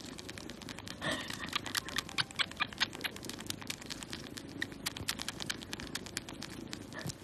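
Tabby kitten suckling and kneading a fluffy fleece blanket: rapid, irregular soft clicks and smacks, busiest between about one and three seconds in.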